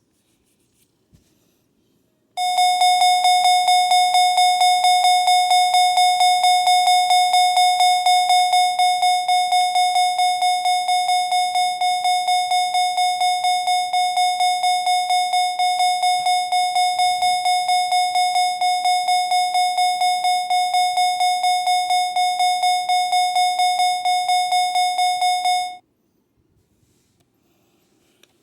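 Electronic fire alarm sounder starting about two seconds in and giving one harsh, buzzy tone at a fixed pitch, pulsing rapidly, for over twenty seconds before cutting off suddenly.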